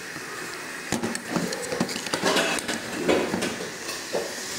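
Water boiling in a small pan, then from about a second in a run of irregular knocks and splashes as tamarind is tipped from a ceramic bowl into the boiling water, loudest near the middle.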